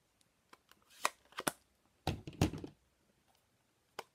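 Light clicks and taps of craft supplies being handled and set down on a work mat, with a louder cluster of knocks about two seconds in.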